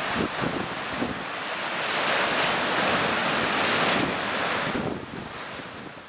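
Ocean surf washing and breaking against a rocky granite shoreline: a continuous rushing roar that swells in the middle, then fades out near the end.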